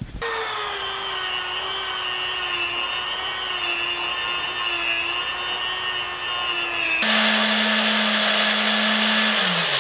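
High-speed rotary tool with a small wire brush whining against a knurled brass knob that a corded drill spins. About seven seconds in it cuts abruptly to the drill alone spinning the knob against micromesh abrasive paper: a lower steady hum with a sanding hiss, the motor winding down just before the end.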